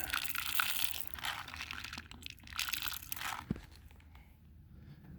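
Dry rustling and crunching in three or four short bouts, then a single sharp click about three and a half seconds in.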